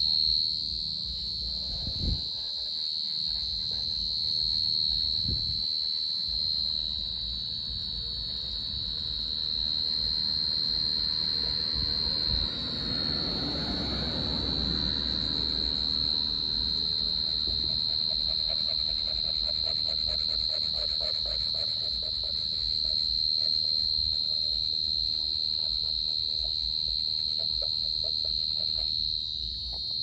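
Cricket singing: a steady, unbroken high trill. A low rumble swells and fades about halfway through.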